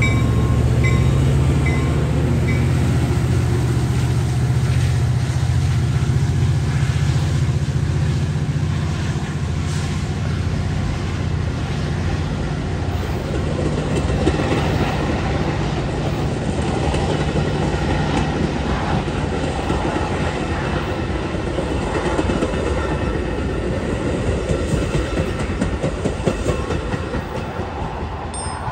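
Metra diesel commuter train passing close by. The locomotive's engine hums low and steady at first, then fades after about twenty seconds as the bilevel coaches roll past, their wheels rumbling over the rails with irregular clicks. The whole sound slowly dies away near the end as the cab car recedes.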